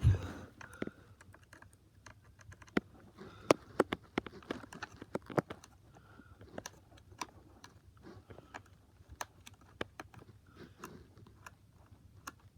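Irregular sharp clicks and taps of a plastic toy train's parts being handled and pried apart during disassembly, with a louder knock at the start and a few louder clicks about three and a half and five and a half seconds in.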